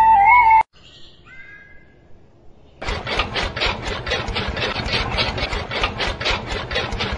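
Flute music cuts off under a second in. After a short lull, a miniature motor-driven chaff cutter starts up about three seconds in and chops leaves: a fast, even clatter of about six to seven strokes a second over a low hum.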